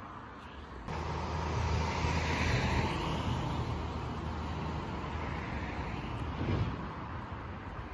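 Street traffic: a heavy lorry drives past close by, a low engine and tyre rumble that starts suddenly about a second in, is loudest a second or two later, then eases off.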